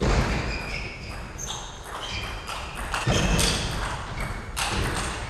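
A table tennis rally: quick sharp clicks of the ball off the bats and the table, with players' footwork thudding and short squeaks of shoes on the court floor.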